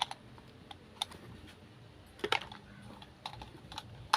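Scattered light clicks and taps of hard parts being handled, irregularly spaced, with a louder knock about two seconds in and another near the end.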